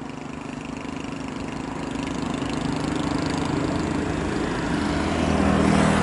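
A vehicle running steadily and growing gradually louder as it draws closer, with a low engine-like hum that strengthens near the end.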